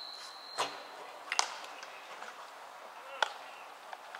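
Three sharp, irregularly spaced knocks of baseballs striking at a practice field, the first with a duller thud, over faint distant voices.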